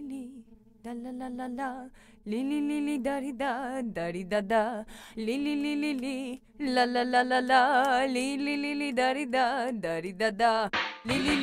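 Background music: a solo voice sings long held notes with vibrato, in phrases broken by short pauses.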